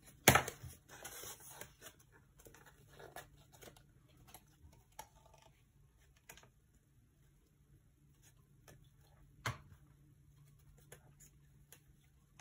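Small rustles and taps of folded paper being handled and glued, with a sharp knock just after the start and another about nine and a half seconds in.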